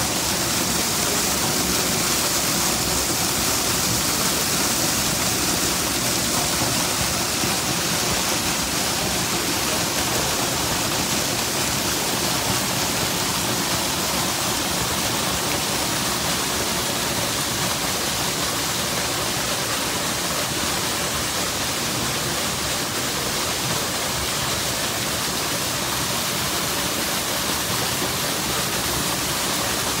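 Waterfall spilling down a rock face and splashing onto rocks and a pool below: a steady, even rush of falling water.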